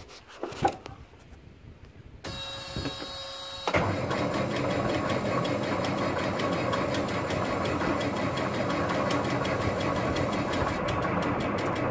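A tandem truck's diesel engine, with no glow plugs, being cranked by its starter at about 30 below: a short steady whine about two seconds in, then steady rhythmic cranking that does not catch. The engine is cold-soaked and a hard start.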